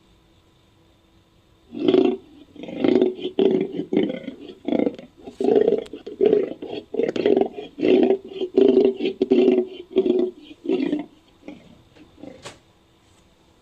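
Big-cat vocal sound effect for Panthera atrox, the American lion: a long series of short, low calls, about one to two a second, fading out near the end.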